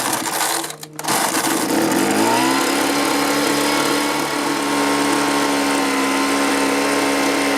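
Two-stroke leaf blower engine starting about a second in on half choke. It speeds up and runs steadily at high speed. It will not run without the choke half on, which the owner reads as the new carburetor's low-speed circuit not getting enough fuel.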